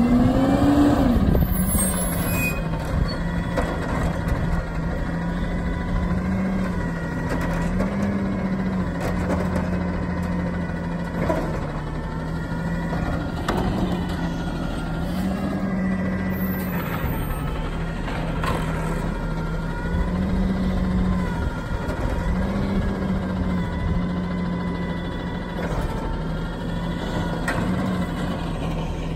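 Diesel garbage truck idling while parked, its engine speed stepping up and falling back every few seconds as the hydraulics work, with a brief rising rev at the start.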